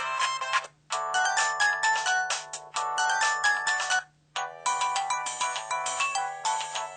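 Samsung SPH-V5100 mobile phone playing its built-in polyphonic ringtone melodies one after another. One tune ends just under a second in, a second plays for about three seconds, and a third starts after a short pause about four seconds in.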